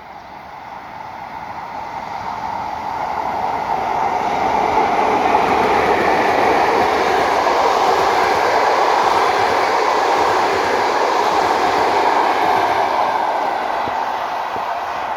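Passenger train hauled by a ChS7 electric locomotive approaching and rolling past, with wheel-on-rail noise. It builds over the first five seconds, holds steady and loud, then begins to fade near the end.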